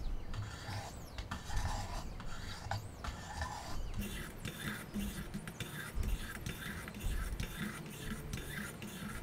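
600-grit diamond stones of a Wicked Edge WE130 guided sharpener stroked along an axe's edge, one side and then the other, with a dry rasping scrape on each pass. The strokes are looser at first, then settle after about four seconds into a steady rhythm of about two a second.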